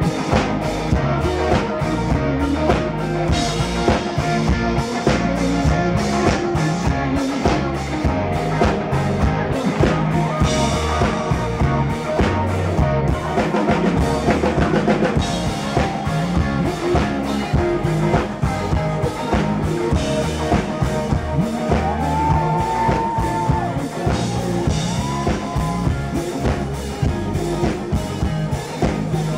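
Live rock band playing a song, with drum kit and electric guitar, heard as a loud, full mix.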